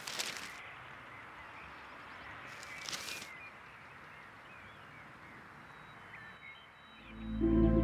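A newspaper rustling as it is unfolded, in two short crackling bursts about three seconds apart, over outdoor ambience with faint bird calls. Soft ambient music with low sustained tones swells in near the end.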